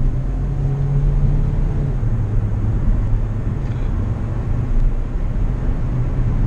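Hyundai HB20's 1.6 four-cylinder engine pulling the car along on its factory exhaust and muffler, a steady engine note that steps down in pitch about two seconds in. It is the car's stock, very original-sounding exhaust note, heard from inside the closed cabin.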